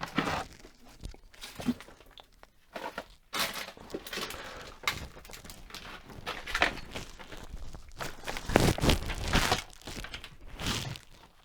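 Irregular clicks, taps and rustling from hands working a hot glue gun and a headphone plug while gluing the cable's wire in place, busiest a little past the middle.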